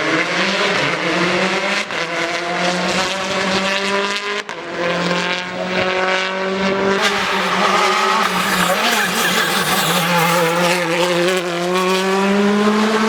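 Rally car engine revving hard under load, its pitch climbing through the revs and dropping back at each gear change, several times over.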